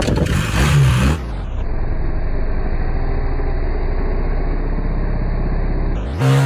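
BMW R1300 GS boxer-twin engine revving sharply about a second in, then held at steady high revs while the rear wheel spins in loose dirt, and blipped again near the end, the pitch falling back after it.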